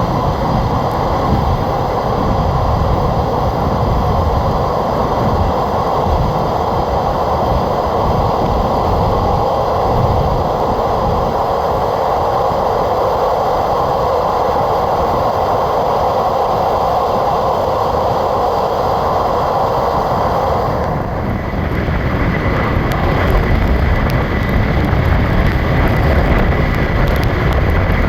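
Passenger train running at speed, heard from on board: a steady rumble and rush of wheels on rail. About twenty seconds in the sound changes, the rush giving way to a deeper rumble with a faint high whine.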